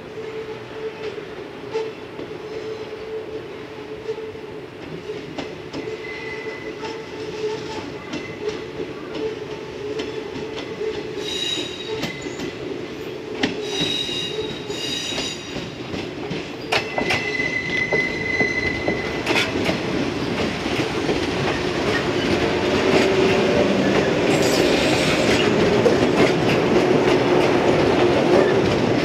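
Yellow JR West electric train approaching and running past close by, its wheels giving short high squeals partway through. Its rolling noise grows steadily louder toward the end as it comes alongside, over a steady hum.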